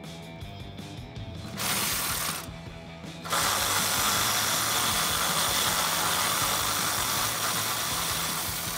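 Cordless electric ratchet with a 12 mm socket running to back out a bolt: a short run about a second and a half in, then a longer steady run from about three seconds that eases off near the end as the bolt comes free.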